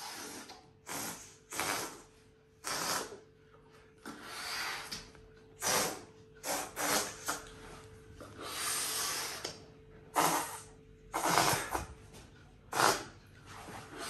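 Repeated hard puffs of breath, a person blowing at a balloon to push it along, at an irregular pace with short gaps, over a faint steady hum.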